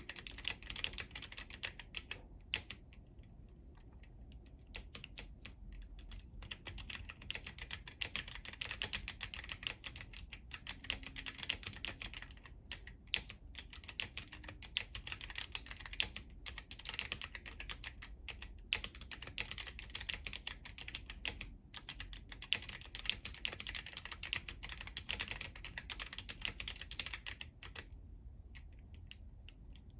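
Typing on a Womier K68 mechanical keyboard with clicky Kailh Box White switches and crystal keycaps: a rapid, continuous run of key clicks broken by a few short pauses.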